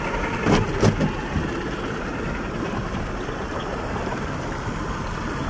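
Traxxas TRX-6 6x6 RC crawler clambering over granite boulders: a few short knocks of its tyres and chassis on the rock about half a second and a second in, over a steady rushing noise.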